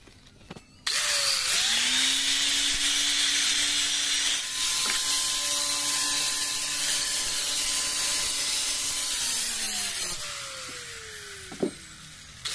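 Handheld electric angle grinder with an abrasive disc grinding and smoothing the edges of ceramic mosaic tiles: it starts about a second in with a rising whine, runs steadily with a harsh hissing rasp, then is switched off and winds down with a falling whine. A sharp click comes near the end, and the grinder starts up again just as the clip ends.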